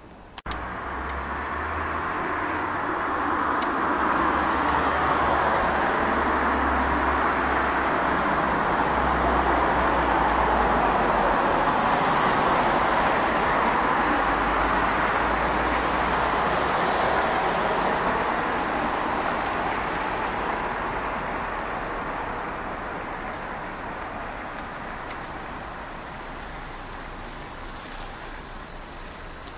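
Distant roar of a Boeing 777-240LR jet airliner flying high overhead, a steady rushing rumble that swells over the first few seconds and slowly fades in the second half.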